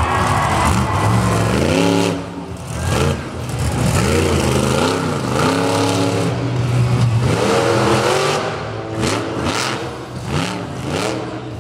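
Miss Over Bored monster truck's engine revving hard in repeated swells, its pitch climbing and dropping about once a second as the truck jumps and spins in the dirt.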